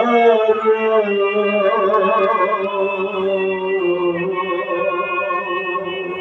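A singer's amplified voice holding long, slowly gliding notes of a song, with a steady low tone underneath.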